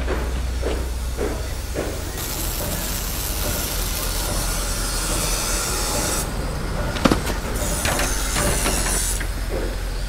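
A loud, steady hiss of escaping gas in two stretches, broken by a sharp click about seven seconds in.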